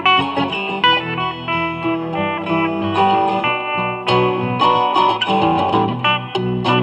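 Guitar being played, a run of quick plucked notes and chords.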